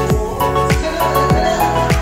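Background music with a steady kick-drum beat, a little under two beats a second, over held pitched notes and light high ticks.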